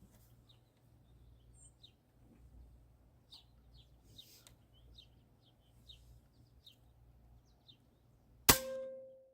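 A single shot from a .22 Hatsan PCP air rifle near the end: a sharp crack followed by a metallic ring that fades over nearly a second. Before it, faint scattered bird chirps over a low steady hum.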